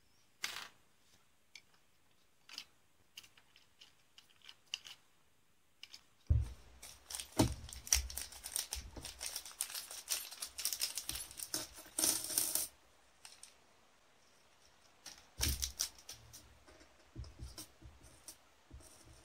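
Light clicks of small plastic kit parts being handled, then a clear plastic parts bag crinkling as it is handled and opened for several seconds. Small metal parts clicking down onto the table near the end.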